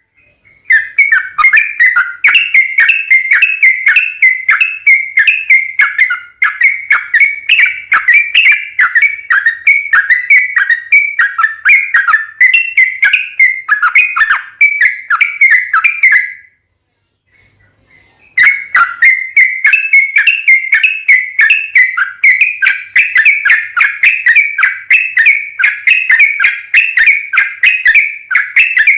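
Yellow-vented bulbul (trucukan) giving its long, fast 'ropel' fighting call: a steady run of short chattering whistled notes, several a second, that breaks off for about two seconds a little past the middle and then resumes.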